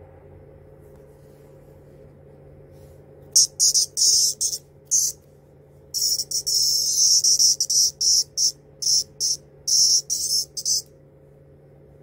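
Male hairy cicada (Platypleura kaempferi) buzzing loudly in high-pitched, stuttering bursts while being handled. A few short buzzes start about three seconds in, then after a brief pause comes a longer run of rapid chopped buzzes that stops near the end.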